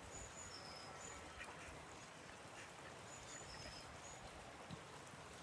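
Faint bird calls: short, high two-note chirps repeating every second or so over a soft steady hiss.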